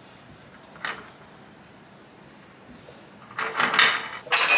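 A cloth wiping foamy cleaner across a glass gas hob: one short swipe about a second in, then a burst of quick rubbing strokes near the end.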